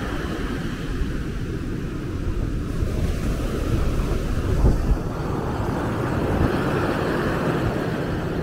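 Surf breaking and washing up the sand, with wind noise on the microphone; a stronger gust buffets it about halfway through.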